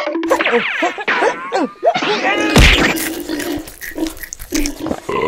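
High-pitched cartoon voice effects chattering in gliding, squeaky gibberish, with a loud smack about two and a half seconds in as a small watermelon is split open.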